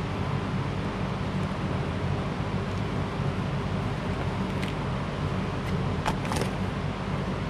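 Steady low hum and hiss of background noise, with a few small clicks between about four and six and a half seconds in as wires and a plastic wiring connector are handled.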